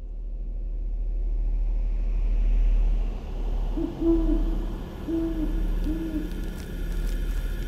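Sound-effect ambience of a deep rumble and rushing noise swelling up, with an owl hooting three times about four to six seconds in.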